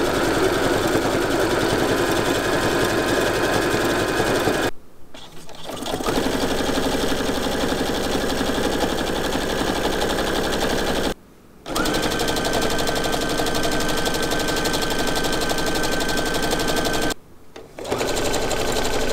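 Brother household sewing machines stitching through layers of denim, each running steadily at a fast even stitch rate with a constant motor whine. The sound stops briefly three times, and each stretch sounds like a different machine.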